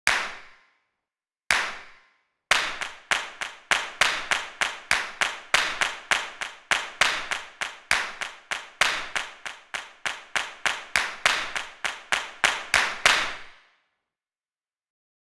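Sharp clap-like strikes: one, then a second about a second and a half later, then a steady run of about four a second lasting some eleven seconds before stopping.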